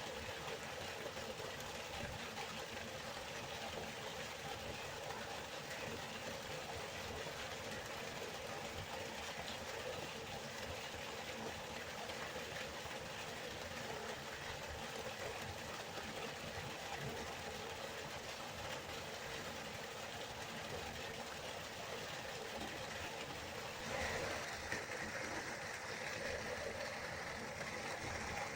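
River water flowing in a steady, continuous rush. Near the end it turns suddenly a little louder and brighter.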